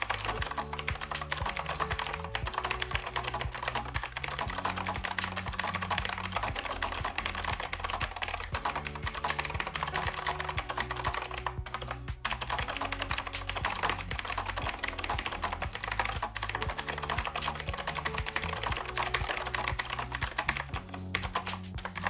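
Fast, continuous typing on an Azio MK Retro mechanical keyboard with clicky blue-clone switches: a dense, unbroken run of keystroke clicks, over background music.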